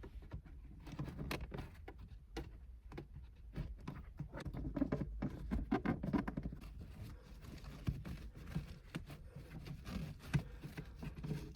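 Faint rustling with many small scattered clicks and taps as a shift boot is worked down over a car's gear shifter and pressed into the console trim.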